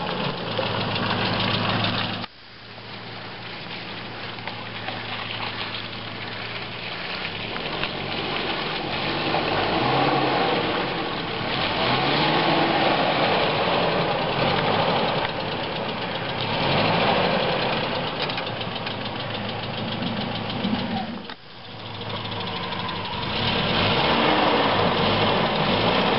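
A 1998 Kia Sportage's 2.0-litre petrol engine pulling the vehicle slowly over rough ground, its revs rising and falling with the throttle. The sound drops out abruptly twice, about two seconds in and again a little after twenty seconds in, then resumes.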